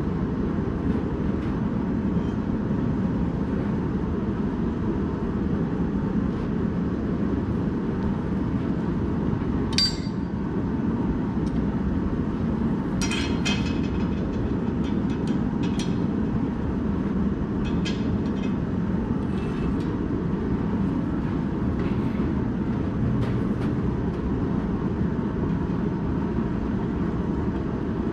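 Steady rushing noise of a propane gas forge burning, with a few light metal clinks: a sharp one about ten seconds in and a cluster a few seconds later.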